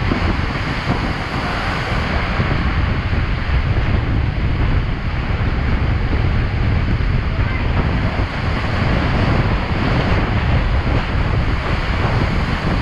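A violent squall with winds over 60 knots and driving rain, the wind battering the microphone with a steady, heavy rumble.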